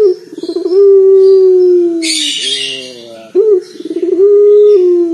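Barbary dove (puter) cooing with a deep, bassy voice: twice, a short rising note, then a rapid rolling stutter, then a long held coo that sinks slightly in pitch.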